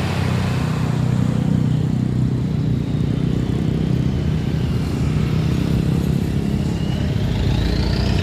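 Road traffic at close range: heavy bus and other vehicle engines running past in a steady low drone, with a faint rising whine near the end.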